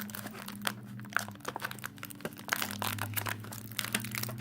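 Toy packaging crinkling and clicking in irregular bursts as a doll is tugged and worked loose from its box.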